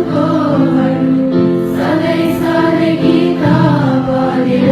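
Background music with held choral singing, the voices moving from note to note.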